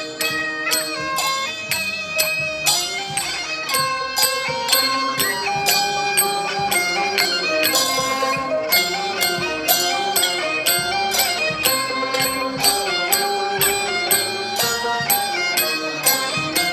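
Traditional-style Chinese music: a melody moving over a steady beat of short percussive strokes.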